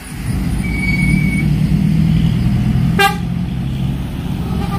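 A bus passing with its engine running in a steady low hum, and a short, sharp horn toot about three seconds in.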